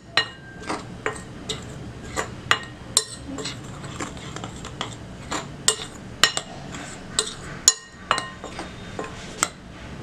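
Metal spoon stirring dry flour in a glass mixing bowl, clinking against the glass again and again at an irregular pace, about twice a second.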